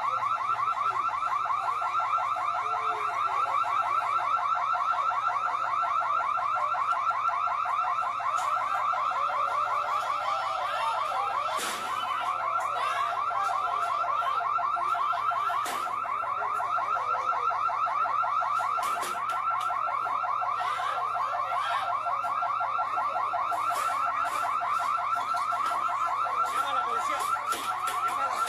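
Electronic alarm sounding continuously, a rapid pulsing warble, with occasional sharp knocks under it.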